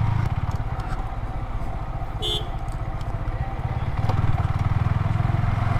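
Yamaha R15 V3's single-cylinder engine running steadily at low speed in second gear, with a brief horn toot about two seconds in.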